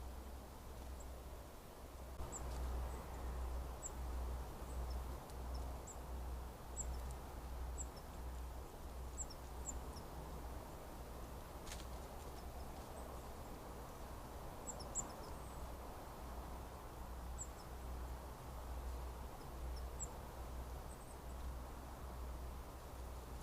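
Outdoor ambience with wind rumbling on the microphone and short, thin, high-pitched chirps from small birds about once a second. A single sharp click comes about halfway through.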